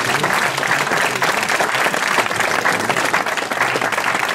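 Audience applauding: many hands clapping at once, steady and dense.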